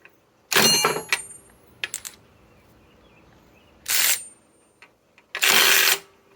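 Cordless right-angle impact wrench fired in short bursts of under a second each, three long and one brief, working in reverse to break loose a tightly torqued nut, with metallic ringing clinks in the first burst.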